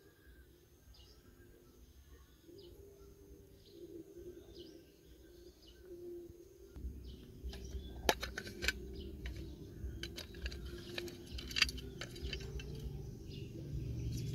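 Birds chirping faintly in the background. About halfway in, handling noise starts, with several sharp clicks and taps as a small metal tin box is held and opened.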